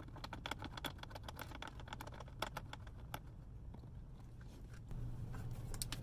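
Light metallic clicks and taps as cable lugs and nuts are fitted by hand onto the studs of a golf-cart battery busbar. A low steady hum underneath grows a little stronger about five seconds in.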